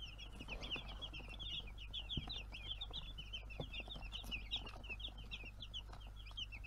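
A flock of young broiler chicks peeping continuously, many short, high cheeps overlapping.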